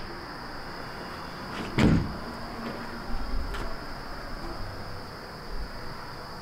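An exterior house door shutting with a single loud thud about two seconds in, followed by a few lighter knocks.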